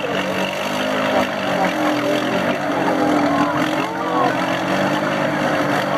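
A lifted ATV's engine running steadily under load while the quad is bogged down in deep mud. Crowd voices are heard over it.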